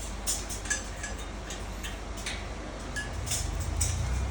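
Scattered light clicks and taps, with a few brief high metallic pings, as metal parts of a microwave stand are handled and fitted together, over a low rumble that grows near the end.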